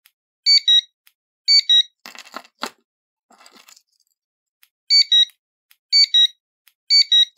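Two-note electronic beeps from an A890 remote tester, each marking that it has picked up a button press from a 433 MHz key-fob remote: two beeps a second apart near the start, then three more a second apart near the end. Between them come a few seconds of clicking and rattling from the metal key fob being handled.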